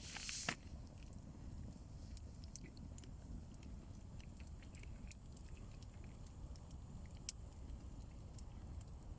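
Faint, sparse crackling and snapping of a small campfire, with a steady low rumble underneath. A short rustling hiss and a sharper snap come right at the start.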